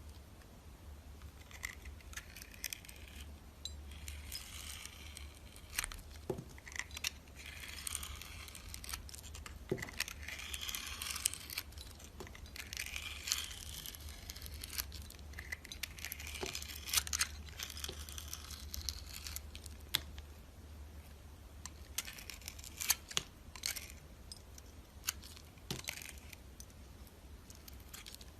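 Knife scraping and cutting through dry soap in repeated strokes of a second or two each, with crisp cracking clicks between them.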